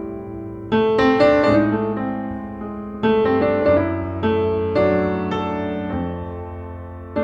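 Background piano music: slow chords struck every second or so, each fading before the next.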